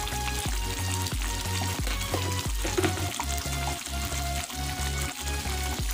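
Sauce frying and sizzling in a pan, with a spatula clicking and scraping now and then as it is stirred.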